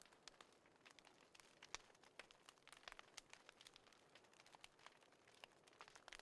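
Faint, irregular crackling and popping of a burning wood fire, sharp clicks scattered over a soft hiss.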